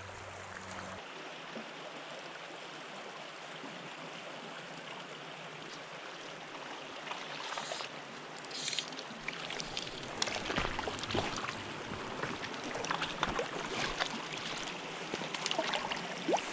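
Small trout stream flowing steadily. About halfway through, irregular sharp clicks and knocks start up over the water.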